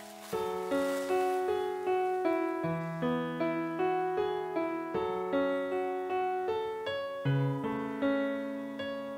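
Background piano music: a gentle run of single notes and chords, struck about two or three times a second.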